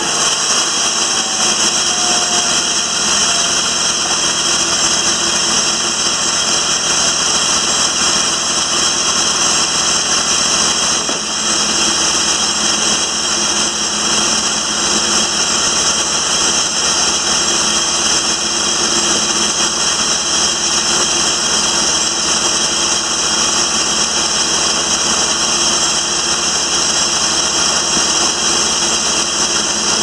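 Timberking 2000 bandsaw mill's engine running steadily, with no cut being made.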